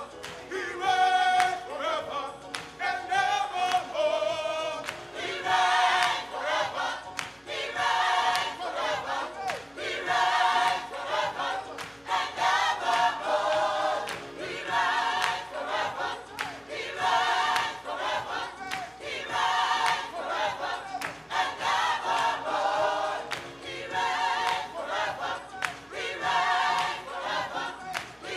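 Gospel choir singing in rhythmic phrases that repeat about every two seconds, with sharp percussive accents.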